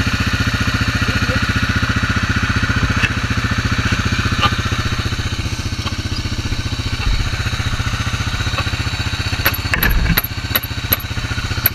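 Single-cylinder ATV engine idling steadily at a low idle. It is the carbureted four-wheeler being worked on to raise the idle so it won't stall. A few sharp clicks and a knock come near the end, from the ATV's plastics being handled.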